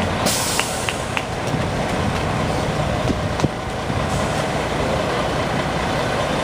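Diesel engines of parked coach buses idling in a steady low rumble, with a brief hiss shortly after the start.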